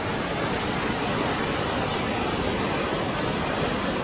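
Tatra T815 military truck's air-cooled diesel engine running as the truck drives away across a field: a steady, rough rumble.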